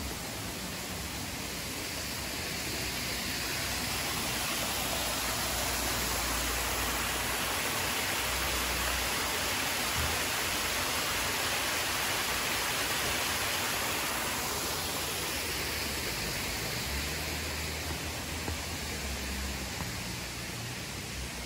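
Rushing water of a mountain stream, a steady hiss that swells over the first several seconds and eases off after about fourteen seconds. Low rumbles of wind buffeting the phone's unshielded microphone come and go underneath.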